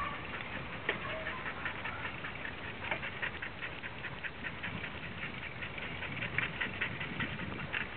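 Dogs' paws and claws pattering on the pavement as they run beside a moving bicycle, a quick irregular clicking over a low rumble of wind and tyres, with a few sharper knocks.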